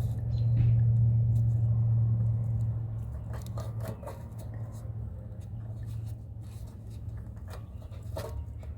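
A steady low hum that drops off after about two and a half seconds and then goes on more quietly, with scattered light clicks and taps.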